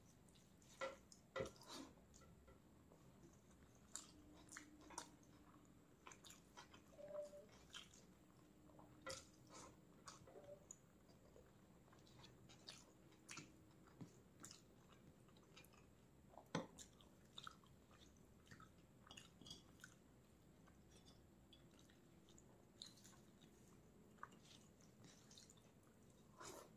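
Close-miked chewing of food, with irregular short clicks and wet mouth sounds between quiet stretches.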